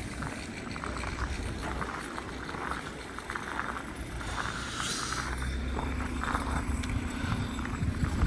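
Vehicle engine running on a snowy street, with a short hiss about halfway through and a steady hum in the last few seconds, over irregular footsteps in snow.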